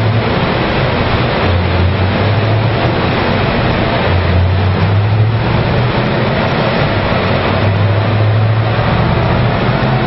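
Stock 2010 Camaro SS's 6.2-litre V8 running on a chassis dyno during a test run, engine and spinning rollers making a loud steady noise with a low drone that shifts slightly in pitch.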